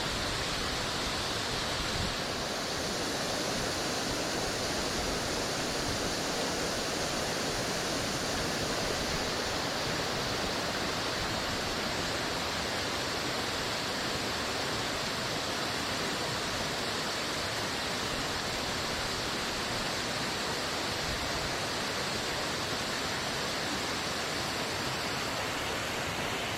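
Mountain stream water rushing, a steady, even noise.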